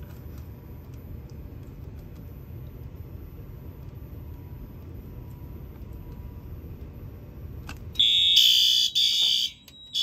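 A low steady rumble, then about eight seconds in a loud, shrill electronic alarm beeping starts in pulses: the Fire-Lite MS-5024 fire alarm panel's sounder going into pre-signal after a smoke detector has been tripped.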